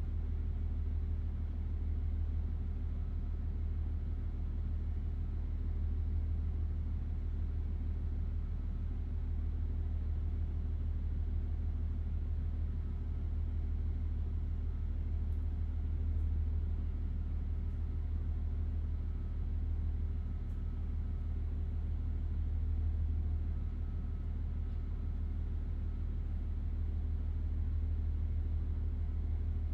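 Diesel engine of a KiHa 40 railcar idling steadily while the train stands at the platform, heard from inside the car as a deep, even drone with a faint steady hum above it.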